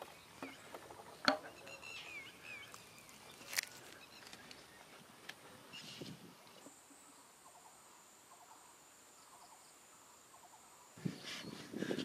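Rural field ambience: scattered bird chirps and clicks, then a steady, high-pitched insect whine through the second half, with a louder flurry of animal calls near the end.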